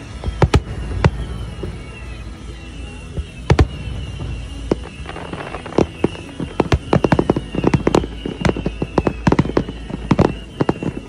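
Aerial fireworks bursting: a few separate bangs, then a rapid volley of many bangs and crackles from about five seconds in.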